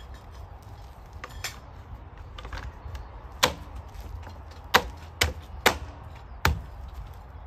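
Tyre-changing hand tools knocking against metal: five sharp clanks spread over about three seconds, starting about three and a half seconds in, over a low steady rumble.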